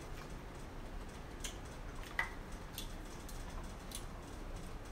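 Faint, scattered small clicks and wet smacks of eating and of gloved hands handling seafood boil food over a bowl of sauce, about five spread over a few seconds.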